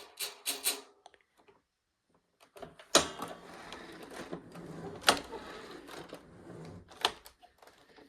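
Clicking and rattling from a vacuum cleaner being handled, with three sharp clacks about two seconds apart.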